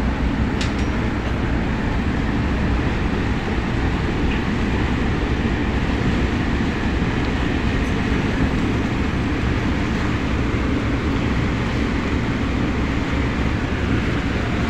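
A tugboat's diesel engines running with a steady low drone, mixed with the even rush of water and air.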